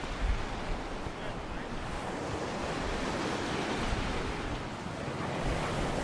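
Sea surf washing onto a sandy beach, a steady noisy wash that swells a little near the end, with some wind buffeting the microphone.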